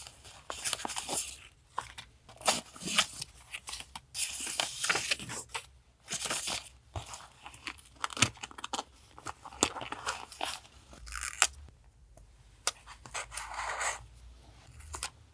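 Paper and collage materials being handled at a desk: irregular bursts of rustling and crackling with many small sharp clicks and taps, quieter for a moment near the end.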